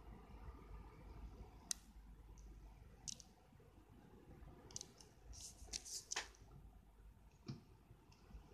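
Near silence with a low hiss, broken by scattered faint clicks: one about two seconds in, another about three seconds in, a quick cluster around five to six seconds in, and one more near the end.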